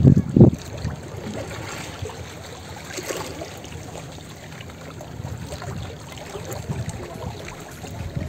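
Small waves lapping and sloshing gently against granite rocks at the water's edge, with two loud low thumps right at the start.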